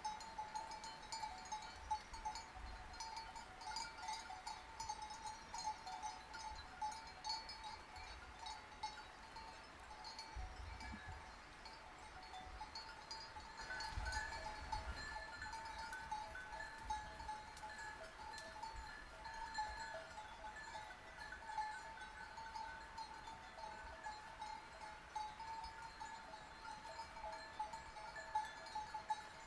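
Bells worn by a flock of sheep, clinking and ringing continuously in many small overlapping strokes. A higher-pitched bell joins in about halfway through.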